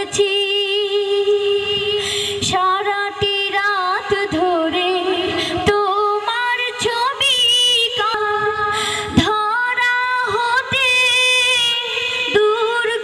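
A boy's high voice singing a Bengali Islamic song (gojol) into a stage microphone, in long held notes that waver and bend in pitch.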